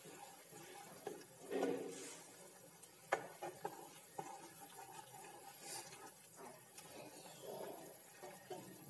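Spatula stirring a thick, simmering okra curry in a nonstick pan: soft wet scraping and sloshing with irregular knocks against the pan, the sharpest about three seconds in.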